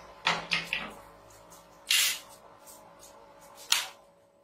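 Homemade spot welder firing: three quick sharp snaps, then a longer, louder crackle about two seconds in and one more sharp snap near the end, as current jumps between the brass electrodes and the thin metal strip, over a faint steady hum.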